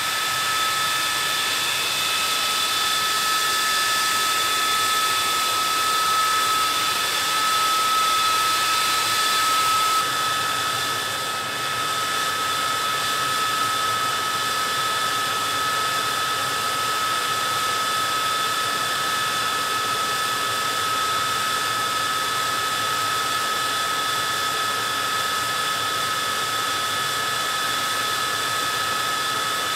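Ground power unit cart running, cabled to the parked MiG-23: a steady rushing drone with a high whine, dipping briefly about ten seconds in.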